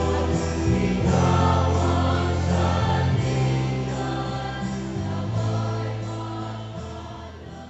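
A choir singing over long held low accompaniment chords, fading out near the end.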